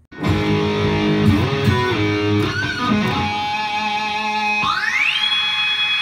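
Music: electric guitar playing held notes. Near the end one note slides up in pitch and is held.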